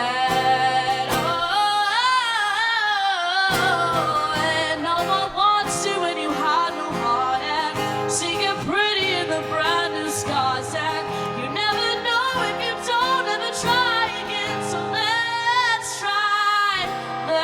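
A woman singing a long passage of sliding, wavering vocal runs over steady musical accompaniment.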